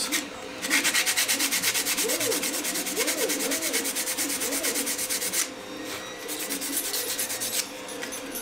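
Hand sanding a small 3D-printed plastic part with sandpaper to take off the nubs left by the print supports: quick, even back-and-forth scratching strokes, about ten a second. The strokes grow lighter a little past the middle and pick up again near the end.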